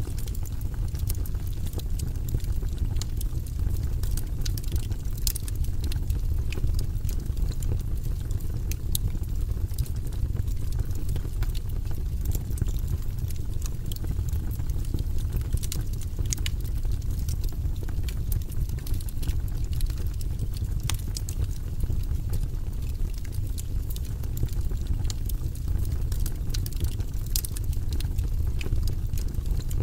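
Wood fire burning in a fireplace: a steady low rumble with many scattered sharp crackles and pops from the burning logs.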